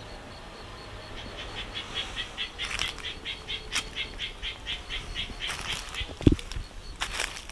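A rapid run of short high chirps, about four a second, lasting several seconds, with a few brief rustles and one loud low thump near the end.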